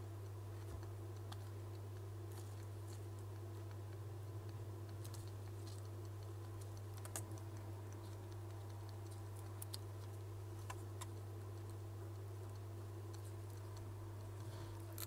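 Steady low hum of bench equipment, with scattered faint light clicks and taps of small tools and parts being handled on the repair bench.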